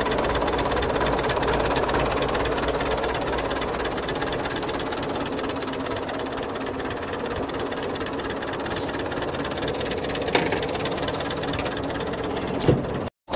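1915 Dodge Brothers four-cylinder engine idling steadily, with two short knocks near the end; the sound cuts off suddenly just before the end.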